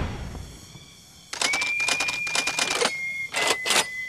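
Edited-in sound effects: the tail of a loud bang fades away over the first second. Then come rapid runs of clicking under a steady high beep, whose pitch drops a little about three seconds in, with the scope-view graphic.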